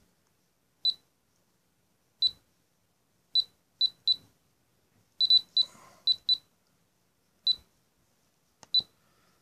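Futaba T7C radio transmitter giving short high key beeps as its select dial is turned and pressed to step through the menus: about a dozen beeps at uneven intervals, several in quick pairs.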